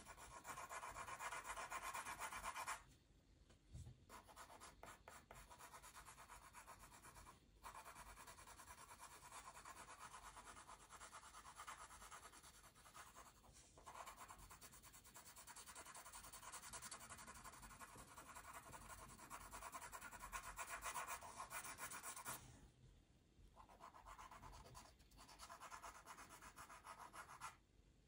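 Faint pencil strokes rubbing on paper, a rapid, continuous scratchy shading sound that stops briefly a few times.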